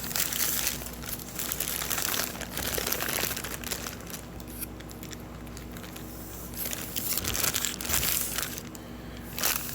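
Paper wrapping of a deli hoagie crinkling and rustling as it is opened and handled, in irregular bursts that ease off midway and pick up again near the end.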